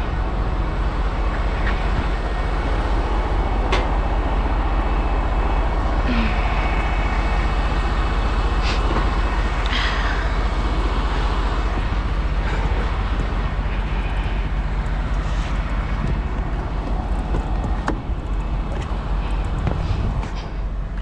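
Semi truck's diesel engine running steadily at idle, with a few sharp clicks and short metallic squeaks over it.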